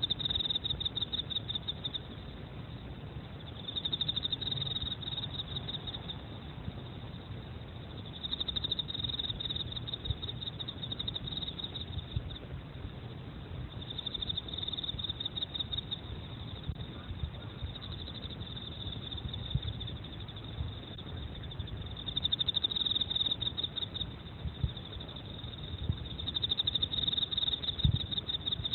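Emma field cricket (Teleogryllus emma) singing: high, rapid pulsed trills in bouts of two to three seconds, repeating every few seconds. A short knock sounds near the end.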